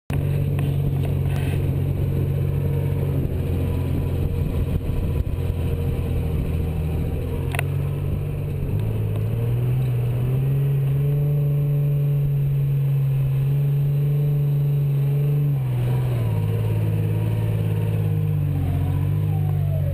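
Mercedes-Benz 280GE G-Wagen's straight-six petrol engine running under load as it pulls through soft sand. Its note steps up and down several times with the throttle.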